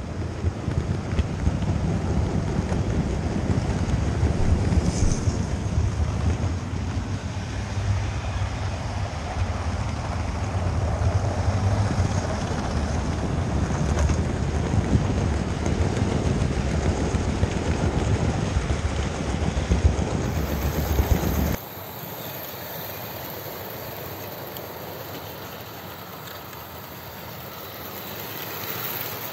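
Loud, steady rumble and rattle of an OO gauge model train running fast along the track, heard from a camera riding on the train. About 21 seconds in it cuts off suddenly to a much quieter steady hum.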